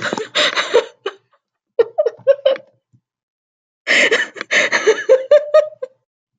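A woman in an uncontrollable fit of laughter: breathy exhaled bursts broken by short pitched "ha" pulses, coming in three bouts with silent catches of breath between them. The longest bout starts about four seconds in.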